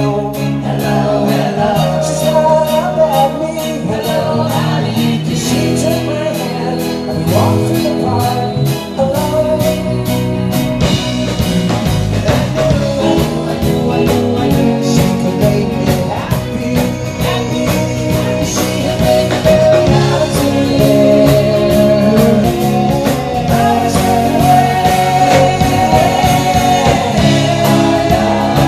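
Live pop-rock band playing, with a male lead vocal over guitars and drums; the band gets fuller, with steady drum strokes, about nine seconds in.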